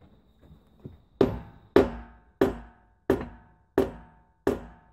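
Six hammer blows, about two-thirds of a second apart, from a small sledgehammer striking the loader's steel split-rim wheel, each with a short metallic ring. The wheel is being knocked into place on the hub.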